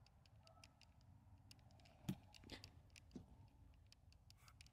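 Near silence: faint scattered clicks and ticks, with a slightly louder tap about two seconds in.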